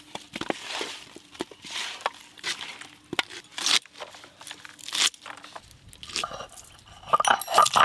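Hands mixing salt and turmeric powder into raw whole parshe fish in a plate: a run of rubbing, squishing strokes roughly once a second, with a cluster of sharp clinks near the end.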